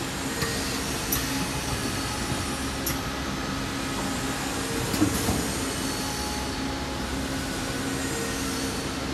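Steady mechanical hum of a bag-in-box weighing and filling machine for flakes running, with a few light clicks and a sharper knock about five seconds in.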